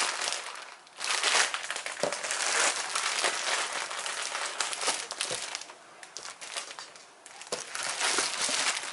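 Plastic packaging crinkling and rustling as it is handled and pulled open, in uneven bursts of crackles.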